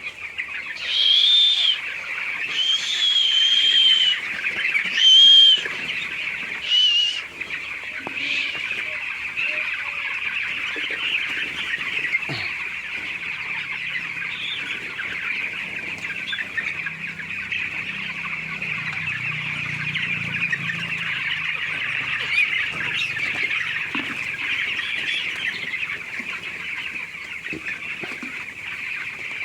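A poultry house full of chickens calling at once, a dense, steady chorus of high-pitched calls. Four louder calls close by stand out in the first seven seconds.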